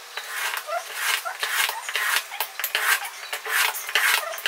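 Utility knife blade scraping along a ruler as it scores a thin aluminium print sheet, in repeated short strokes, two or three a second. The sheet is scored over and over until the border can be snapped off.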